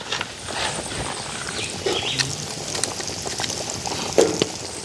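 Chicken pieces deep-frying in hot oil in an aluminium pot, the oil bubbling and crackling steadily, with a fork clicking against the pot as the pieces are turned. A couple of short calls sound in the background, around the middle and again near the end.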